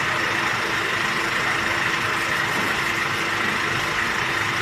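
A steady motor-like hum with a constant hiss over it, unchanging in level throughout.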